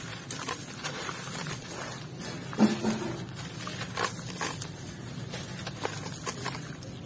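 Hands crushing wet, gritty cement chunks, the crumbs and grains crackling and pattering down into a basin of water, with one louder hit about two and a half seconds in.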